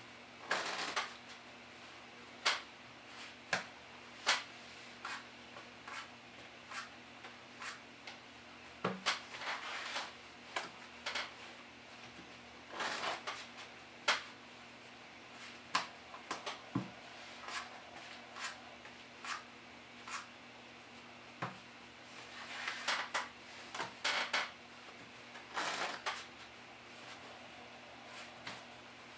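Playing cards being table riffle-shuffled on a cloth close-up mat: several short riffling rustles, with sharper taps and clicks between them as the halves are pushed together and the deck is squared.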